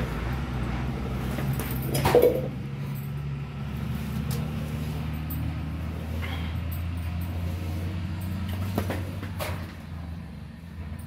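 A steady low mechanical hum, like a running motor, that eases off near the end, with a few short knocks on top of it; the loudest knock comes about two seconds in.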